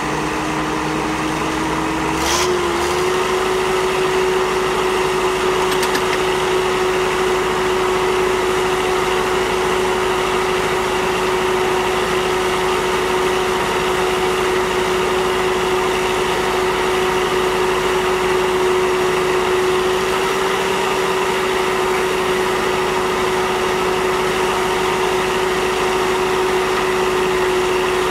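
Caterpillar 120 motor grader engine running steadily with a constant hum. About two seconds in there is a click and the pitch steps up slightly, then holds.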